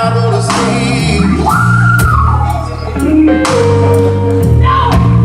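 Live blues band playing a slow blues between vocal lines: bass notes and drum hits, with a held lead line that bends up and holds high in the middle.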